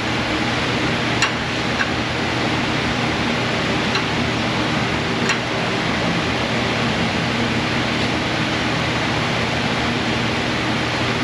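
Steady rushing background noise of the fan or air-conditioning kind, with four light clicks in the first half.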